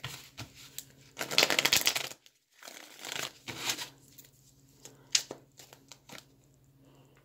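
A deck of tarot cards being shuffled by hand: a burst of rustling shuffling about a second in, the loudest part, shorter rustles after it, then a few single card clicks.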